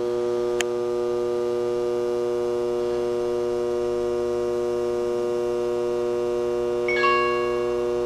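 Small AC blower motor running with a steady electrical hum, switched on by the furnace sequencer's first stage. There is a faint tick about half a second in and a brief ringing clink about seven seconds in.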